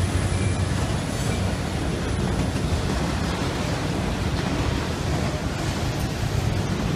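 A train rolling past, making a steady rushing rumble with no distinct horn or wheel clicks.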